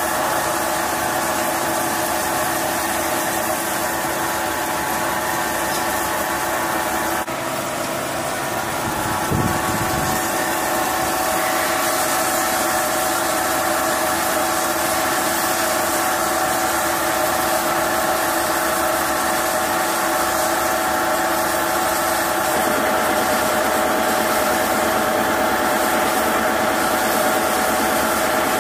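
CNC lathe turning a metal mould blank under flood coolant: a steady machine whine from the spindle and cut over a constant spray hiss. The sound shifts slightly about seven seconds in, and a short low thump comes a couple of seconds later.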